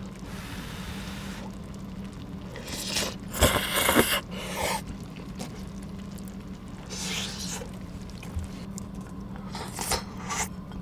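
Eating sounds: chopsticks scraping and clicking against a ceramic bowl of rice and stew, with chewing. Near the end the bowl is tipped up and the last of it is scraped into the mouth.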